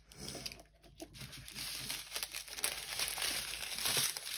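Small plastic bags of diamond-painting drills crinkling as they are picked up and handled, the crinkling starting about a second and a half in and going on steadily after that.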